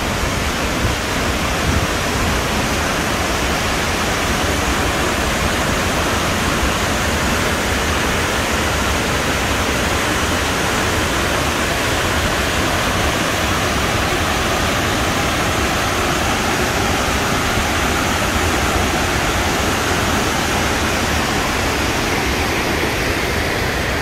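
Burney Falls, a tall waterfall with many streams pouring off a rock face into its plunge pool, making a steady, even rush of falling water.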